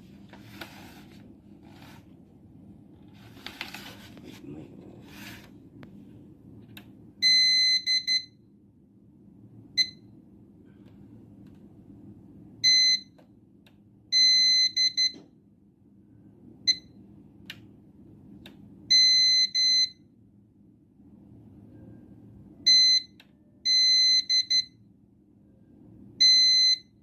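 A UPS alarm buzzer beeping in an uneven pattern of short and longer high-pitched beeps, starting about seven seconds in. Before that, a few short bursts of handling noise.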